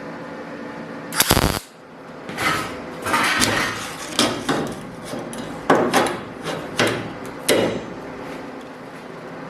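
Welder laying a series of short tack welds on sheet steel: about eight brief crackling bursts of arc, each a fraction of a second long, fixing steel flame pieces onto the truck's hood.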